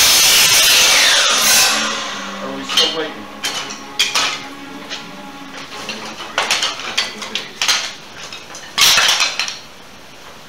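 DeWalt sliding miter saw finishing a cut through firewood, then its motor winding down with a falling whine over the first couple of seconds. After that, cut pieces of wood knock and clatter as they are handled on the saw table.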